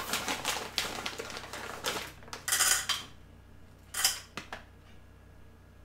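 Plastic resealable pouch crinkling and rustling as chocolate chips are shaken out of it: rapid crackles for about three seconds, with a louder burst about two and a half seconds in and another about four seconds in.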